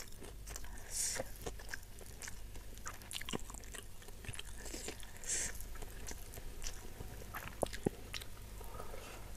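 Soft close-miked chewing of spicy beef and rice eaten by hand: small wet mouth clicks and lip smacks, with two brief hisses about one and five seconds in.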